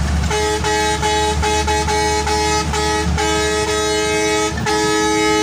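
Bus's air horn with several tones at once, sounded in a run of short blasts about half a second apart and then held for longer blasts, over the low rumble of the engine.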